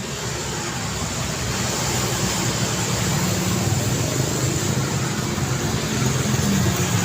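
City street traffic: a steady wash of tyre and engine noise from passing cars, swelling over the first few seconds as a vehicle draws near, with a low engine hum throughout.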